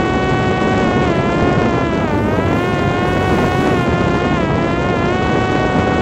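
High-pitched whine from a Parrot Disco drone's electric motor and propeller running at high power in steady flight. The pitch holds steady but dips briefly a couple of times and then recovers.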